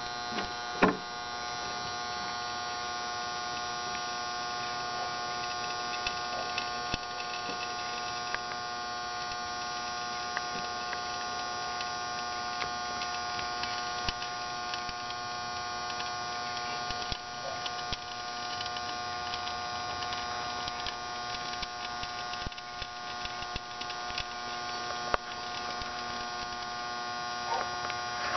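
Microwave-oven transformer humming steadily with a buzzy stack of overtones, under heavy load as it drives current through a thin copper wire heated red hot. A few scattered faint clicks sound over the hum.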